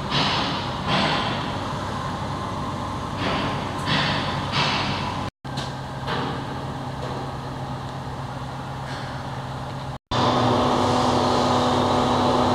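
Diesel engine of a heavy mobile crane running steadily, with short hissing bursts every second or so in the first few seconds. After about ten seconds the engine hum is louder and steadier.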